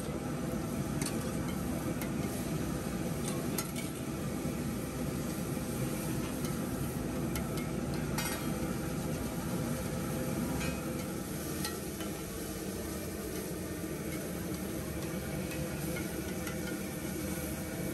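Egg dish frying on a street-stall griddle: a steady sizzle with scattered clinks and scrapes of a metal spatula.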